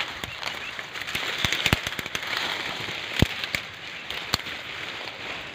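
Dry twigs, vines and leaves crackling and snapping underfoot and against the body as someone pushes through thick undergrowth, in irregular clicks, with one sharper crack about three seconds in.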